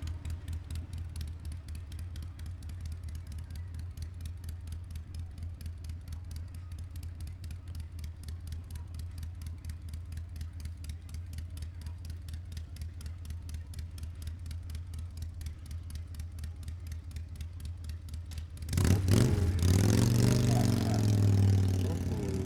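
Steady low background hum with fast, even ticking. About 19 s in, a Whelen WPS-4004 outdoor warning siren's loudspeakers start the pre-recorded test voice message ("This is a test..."), loud and echoing.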